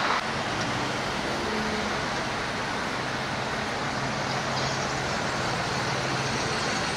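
Steady highway traffic noise with a low engine hum underneath, a slight drop in level just after the start.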